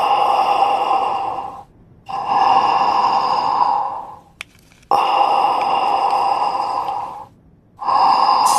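Breathing through a respirator mask: four long, even breaths of about two seconds each, with short pauses between them. A single small click falls between the second and third breaths.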